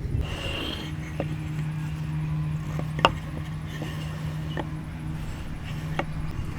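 Four sharp knocks about a second and a half apart, the second the loudest, like wooden parts being tapped together, over a steady low hum.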